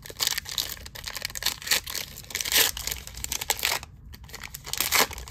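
A foil trading-card pack being torn open and its wrapper crinkled in the hands: irregular crackling rips and rustles, louder about halfway and again near the end, with a brief lull just before the last.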